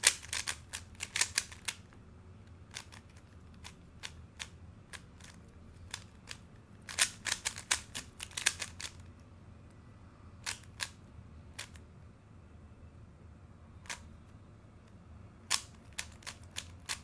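Moyu RS3M 2020 3x3 speed cube being turned by hand during a solve: quick flurries of plastic clicks from the layer turns, at the start and again about seven seconds in, with pauses and scattered single clicks between them.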